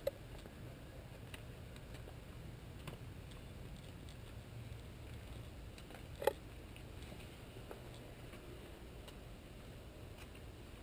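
Quiet outdoor background: a faint steady low hum with a few soft clicks, and one short tap about six seconds in.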